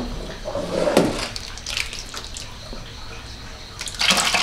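Water splashing and sloshing, with irregular bursts and a louder burst of splashing near the end.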